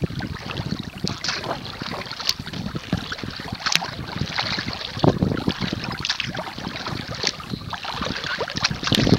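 Kayak being paddled: water splashing and slapping against the hull in short bursts every second or so, with wind buffeting the microphone.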